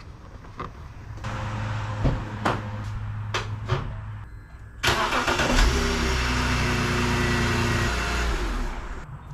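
Car engine, the BMW 325i's inline-six, started after a fresh oil fill: a few knocks and a low hum at first, then it catches about five seconds in, runs for about four seconds and is shut off.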